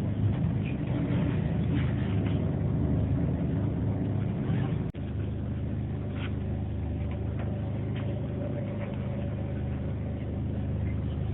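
Steady low rumble inside a Class 67-hauled passenger coach crawling along at very low speed, the slow running caused by a failed speedometer on the driving unit. A few faint clicks ride over it, and the sound drops out for an instant about five seconds in.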